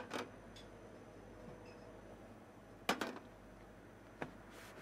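Glasses set down on a wooden bar counter: a few sharp knocks over quiet room tone, the loudest about three seconds in with a short ring.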